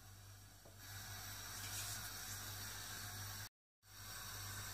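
Oil heating in a wok on a hob: a faint steady hiss over a low hum, broken by a moment of total silence about three and a half seconds in.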